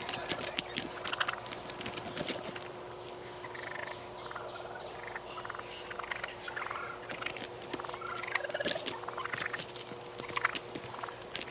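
Wild turkey toms calling close by, mixed with scattered short clicks and rustles.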